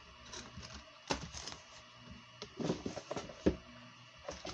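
Rustling of lure packaging being handled in a cardboard box, with a few sharp clicks and taps.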